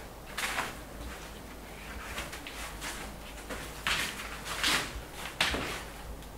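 A paintbrush swishing and scraping across a wall in quick, irregular strokes, several short swishes, the loudest in the second half.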